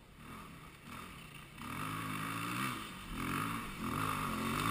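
Enduro dirt bike engine climbing toward the listener, getting louder about a second and a half in, its revs rising and falling again and again as the throttle is worked up the slope.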